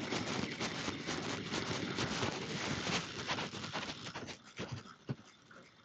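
Sounds of a hooked bream being fought on a spinning rod and reel: dense, irregular scrabbling noise that dies down about four seconds in, followed by a few sharp clicks.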